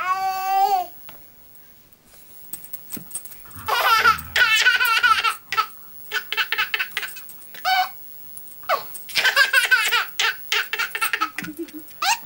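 A baby laughing in several bouts of high-pitched, quavering giggles, with a quiet pause of a couple of seconds near the start.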